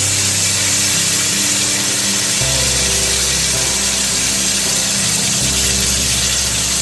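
Spice pastes frying in hot mustard oil in a pan: a steady sizzle. Under it runs background music whose low notes change every few seconds.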